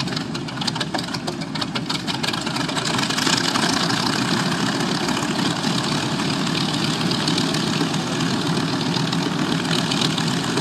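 The twin Wright R-2600 radial engines of a North American B-25 Mitchell running at low power, a steady engine rumble that grows louder about three seconds in and then holds.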